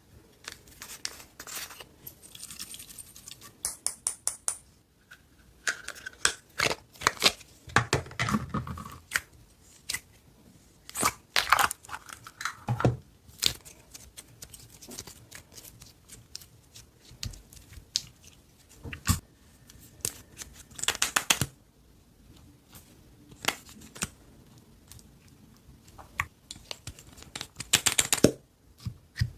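Slime being pressed and stretched by hand, giving irregular sharp crackles, pops and sticky clicks with short pauses between.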